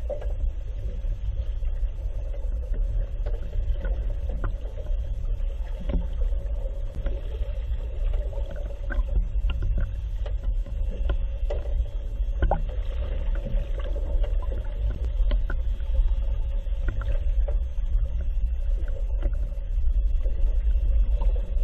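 Muffled underwater sound picked up through a GoPro's waterproof housing: a steady low rumble with a constant hum, and scattered faint clicks.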